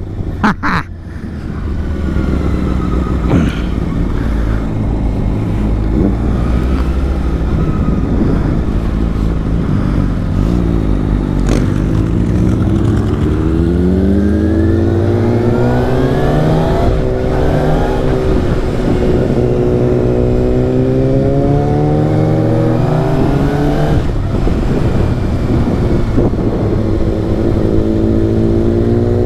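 Kawasaki ZX-6R's 636 cc inline-four running through an Akrapovic slip-on exhaust while riding. It revs up and eases off, and the pitch climbs and drops repeatedly as the bike accelerates and shifts.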